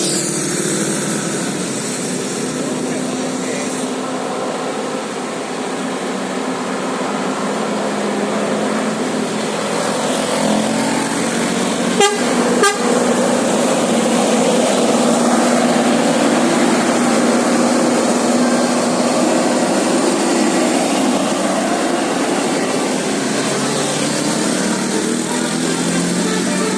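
Bus's telolet musical air horn sounding over bus engine and roadside noise, with two sharp clicks about halfway through.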